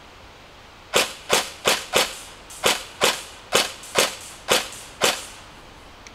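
Custom Tokyo Marui MP5K electric airsoft gun firing about ten sharp shots in quick succession, two to three a second, then stopping.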